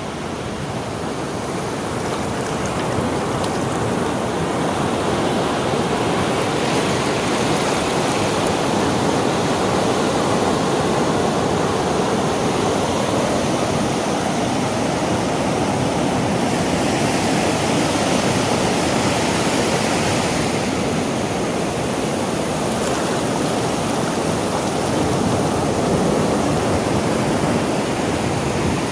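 Sea waves washing onto a shore in a continuous dense rush, swelling and easing slowly.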